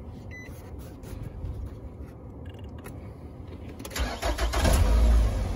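A 2005 Nissan Altima's 2.5-litre four-cylinder engine starts: the starter cranks about four seconds in, the engine catches and flares up briefly, then settles to idle. A short beep sounds near the start, with small clicks before the engine turns over.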